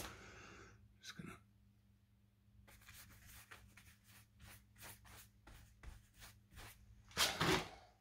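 A nearly dry paintbrush scratching back and forth across a painted wall, a run of short, faint scratchy strokes at about four a second starting a few seconds in. A louder short noise comes near the end.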